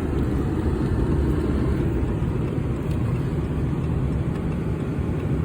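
Steady engine and road rumble heard from inside a truck's cab while driving.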